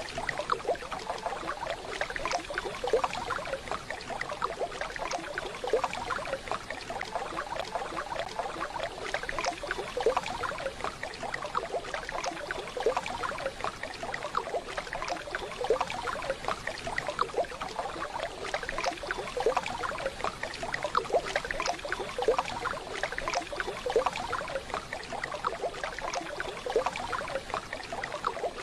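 Waterfall: a continuous rush of falling water with irregular splashing.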